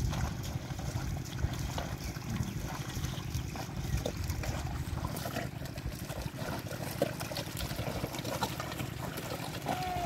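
A pair of bullocks ploughing a flooded paddy field: hooves and the wooden plough squelching and splashing through wet mud, with water trickling and sloshing, over a steady low rumble.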